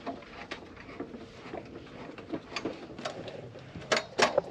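Faint scattered light clicks and knocks of things being handled, over a low background hiss, with two sharper clicks near the end.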